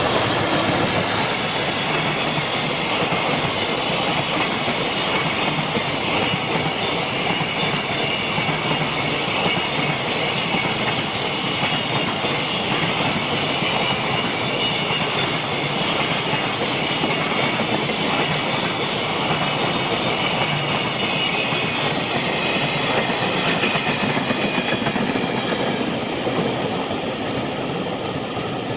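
JR Freight container train of Koki flatcars, many of them empty, passing at speed: a steady rush of rolling wheels and wagons with clickety-clack from the rail joints and a thin high ringing from the wheels.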